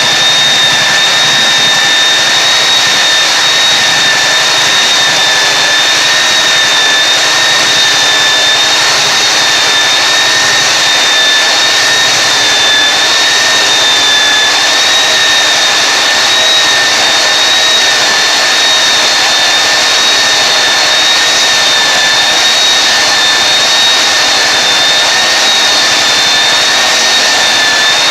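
Belt floor sander running steadily as it grinds old vinyl floor tile, a loud continuous rush of noise with a steady high whine.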